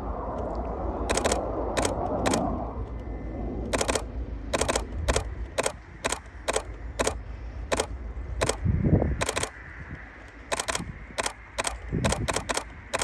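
Canon 7D DSLR shutter firing again and again, loud and close because the recording phone is mounted on the camera: about twenty sharp clicks, singly and in quick runs, starting about a second in. A steady low rumble lies underneath, strongest in the first few seconds.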